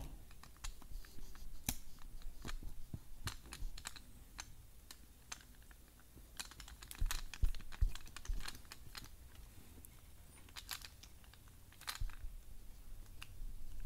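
Screwdriver turning the terminal screw of a replacement plastic electrical plug while fingers handle the plug, making small irregular clicks and ticks in clusters.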